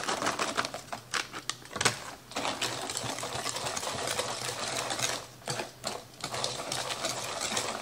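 A wire whisk stirring thick pecan pie filling full of pecan halves in a plastic bowl, its tines clicking rapidly and evenly against the bowl and nuts, with a couple of short pauses. At the start, a plastic bag of pecans crinkles as it is shaken out.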